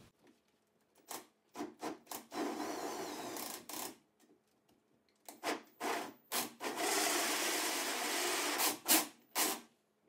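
Cordless drill turning a 6-inch hole saw in reverse against a drywall ceiling, its teeth scraping the soft gypsum to score a starter ring instead of biting in. It goes in stop-start spurts: several short bursts and two longer runs of about one and a half to two seconds.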